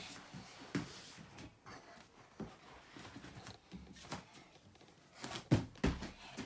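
Folding foam gymnastics mat being handled and unfolded on a carpet, with scattered soft taps and rustles, then a few louder thumps near the end as hands and feet land on the mat during a cartwheel.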